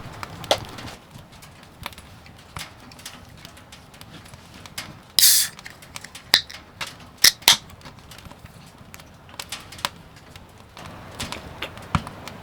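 Scattered light clicks and knocks of things being handled, with one short hiss about five seconds in and a few sharp clicks soon after.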